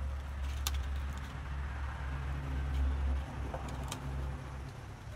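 Low engine rumble of a motor vehicle running nearby, easing off about three seconds in, with a couple of light clicks.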